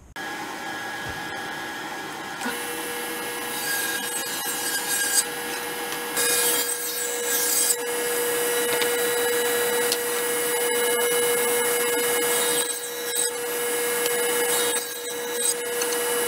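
Table saw running and ripping thin strips of wood, with a steady tone under the cutting noise that comes in a couple of seconds in and a few brief dips between passes.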